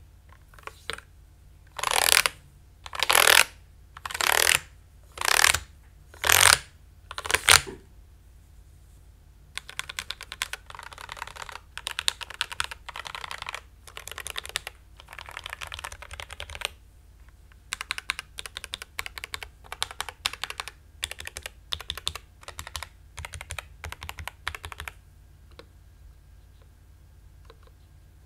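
Typing on a Dark Project KD87A mechanical keyboard with lubed G3MS Sapphire linear switches. It opens with about six short, loud bursts of keystrokes roughly once a second. Then comes a long run of fast, steady typing, ending in a few single key presses.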